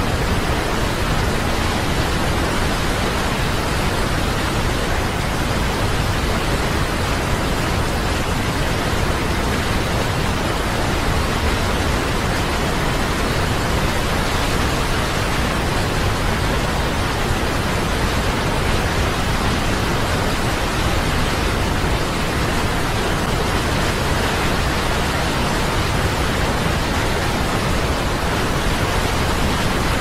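Waterfall: a large volume of water falling into a plunge pool, making a steady, unchanging rush.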